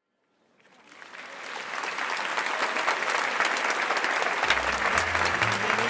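Applause, many hands clapping, fading in from silence over the first couple of seconds and then holding steady. A bass line of music comes in under it near the end.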